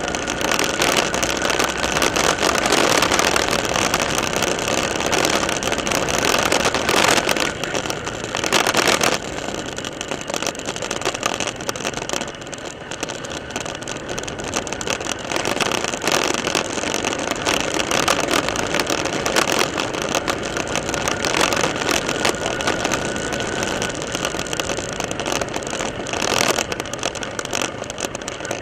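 Motorcycle being ridden on a bumpy dirt road, heard from a camera fixed to the bike: a steady rush of wind and road noise over the running engine, a little quieter after about nine seconds.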